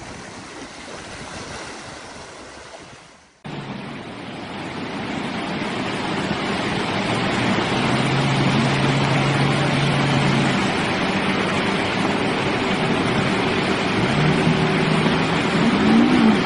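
Loud steady rushing noise with a heavy vehicle engine running underneath, revving up and back down near the end; the sound changes abruptly about three seconds in.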